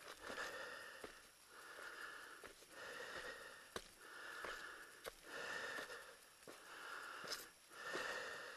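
A person breathing hard close to the microphone, quick rhythmic breaths about one a second, with a few sharp clicks in between.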